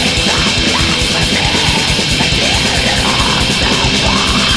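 Black metal band playing at full tilt: distorted electric guitars and bass over rapid, unbroken drumming, loud and dense throughout.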